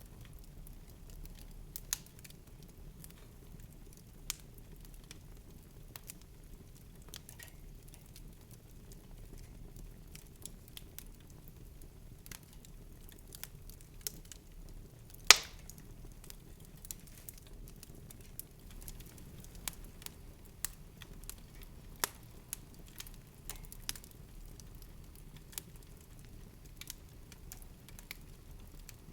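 Irregular sharp clicks and light crackles, one much louder about halfway through, over a steady low hum.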